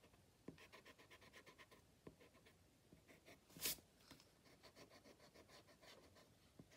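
Faint quick scratching of a pencil and an eraser rubbing on sketchbook paper, with one louder stroke about three and a half seconds in.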